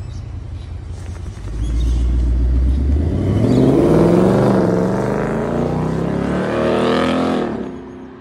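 2021 Ford Mustang pulling away and accelerating: a low engine rumble swells about one and a half seconds in, then the engine note climbs, dips, climbs again and fades as the car moves off.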